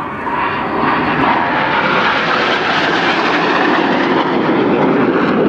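Roar of low-flying BAE Hawk T1 jet trainers, building over the first second or two and then holding loud and steady.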